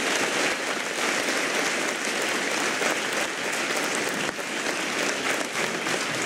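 Large audience of students applauding steadily, with dense clapping that holds at an even level throughout.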